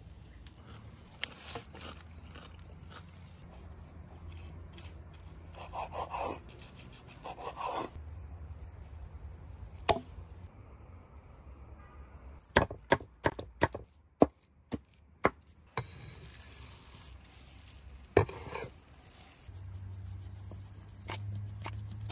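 Knife chopping and handling raw meat on a wooden cutting board: soft rubbing and scraping, then a quick run of about seven sharp knocks of the blade on the wood midway, with a single knock before and after.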